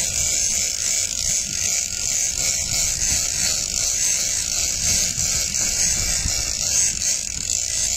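Heavy big-game lever-drag fishing reel buzzing steadily as it is cranked against a hooked bluefin tuna, with low wind noise on the microphone.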